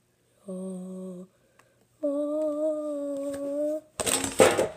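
A boy humming two held notes, the second higher and longer than the first. Near the end a loud, brief scuffing noise as a boxing glove brushes against the phone's microphone.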